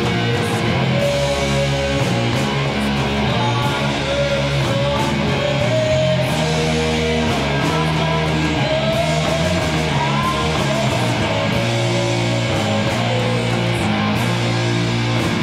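Rock band playing live: electric guitar and bass holding sustained chords and low notes under a wavering melodic line, with repeated cymbal hits.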